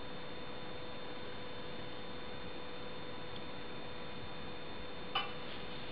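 Steady hiss with a faint, even electrical hum and whine at a constant level. A single sharp tap comes near the end.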